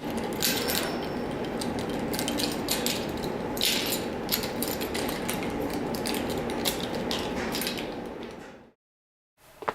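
Many small clinks and clicks of hard objects over a steady hum, cutting off abruptly near the end.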